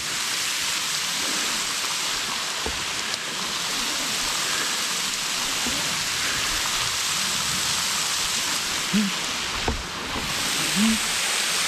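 Steady rush of a waterfall, falling water splashing without a break.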